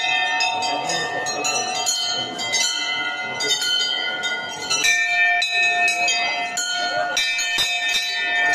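Several bells ringing rapidly and without pause, with many overlapping strikes and ringing tones at different pitches, as at a puja.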